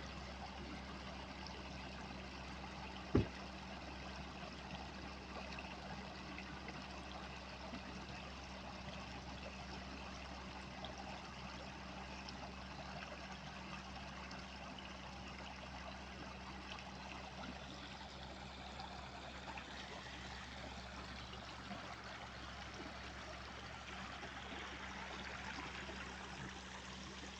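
River water flowing steadily, an even rushing with a trickle. A single low thump about three seconds in.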